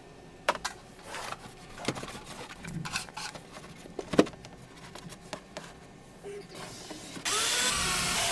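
Scattered knocks and clicks as parts are handled inside a storage compartment. About seven seconds in, a cordless drill/driver starts running with a rising whine as it drives a screw to mount the solar controller's remote panel.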